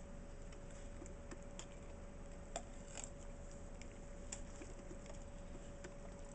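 Sparse light clicks and ticks, a few sharper ones around the middle, over a faint steady hum.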